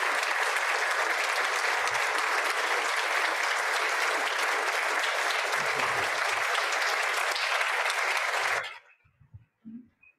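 Audience applauding steadily, the clapping dying away quickly about a second and a half before the end.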